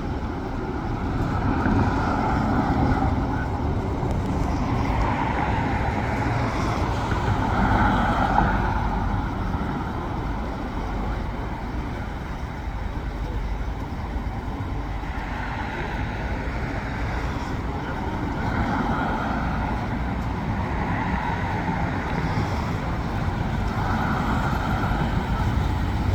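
Street traffic: a steady low rumble with vehicles passing every few seconds.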